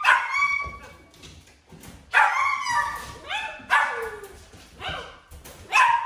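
A puppy giving a run of short, high-pitched yips and barks, about half a dozen over a few seconds, some of them sliding down in pitch.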